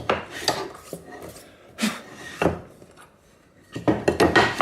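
Clicks, knocks and scraping of metal and wood as a sliding mitre saw is handled and adjusted for a 45-degree cut. The sounds come in a few separate clusters, the busiest near the end.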